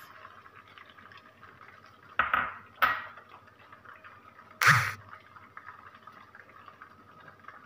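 Beaten egg frying softly in hot oil in a non-stick wok as it sets, with three sharp clinks of dishes or utensils, the last and loudest about four and a half seconds in.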